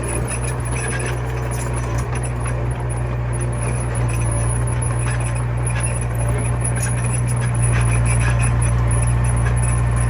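Komatsu mini bulldozer's diesel engine running steadily, with scattered light clicks over it, growing a little louder near the end.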